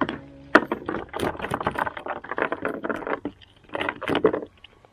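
Rapid, irregular rattling and knocking of fishing gear being handled on a kayak, with a short lull partway through.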